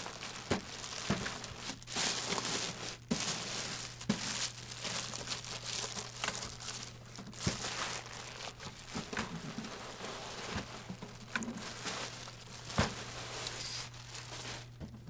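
Clear plastic bag crinkling and crackling as it is pulled off a printer, with irregular sharper crackles throughout that ease off near the end.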